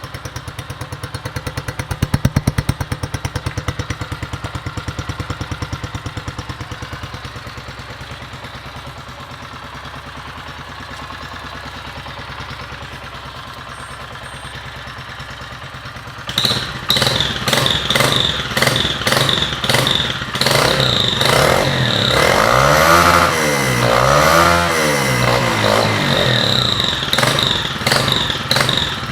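A 2008 Honda CG 125 Fan's single-cylinder four-stroke engine idling through a Roncar ML Competition estralador (popping) exhaust. About halfway through it is revved hard, with a rapid string of sharp pops and crackles from the exhaust, and the revs rise and fall twice before it drops back to idle near the end.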